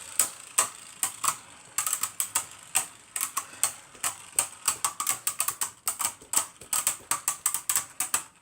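Two spinning plastic Beyblade Burst tops clashing in a battle stadium: a rapid, irregular run of sharp clicks as they collide and skitter against each other and the stadium walls, with a brief lull about a second and a half in.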